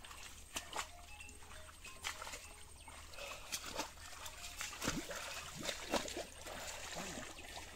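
Shallow pond water splashing and trickling in short, irregular spurts.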